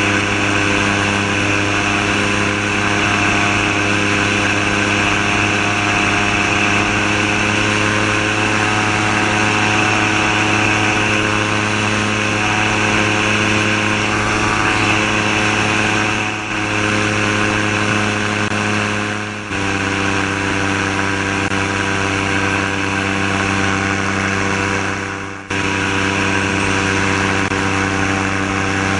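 Gyrocopter's Subaru EA-81 flat-four engine driving a Warp Drive propeller through an NSI gearbox, running steadily at high power through the takeoff roll and climb-out. There are three brief dips in level, and after the second, about two-thirds of the way through, the engine pitch settles a little lower.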